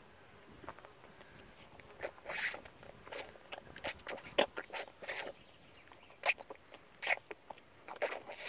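Shire foal suckling at the mare's udder, latched on and drinking milk: a quick, irregular run of sucking and smacking sounds that starts about two seconds in.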